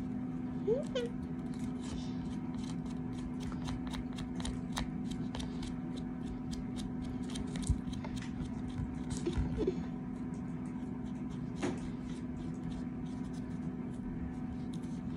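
Kinetic sand being handled and pressed, giving scattered light clicks and taps over a steady low hum, with a couple of brief vocal sounds.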